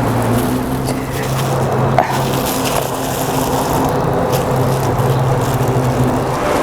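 Steady low mechanical hum over a broad hiss, with a few faint clicks.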